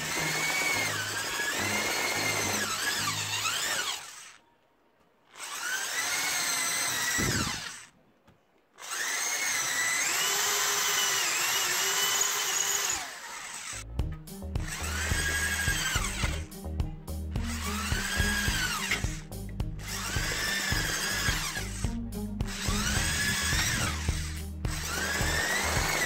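iBELL SD10 electric screwdriver-drill driving a twist bit, first into plywood, then into a thin orange sheet. The motor whine rises in pitch as the variable-speed trigger is squeezed and falls as it is eased off: three longer runs with short pauses between them, then about half a dozen shorter runs one after another in the second half.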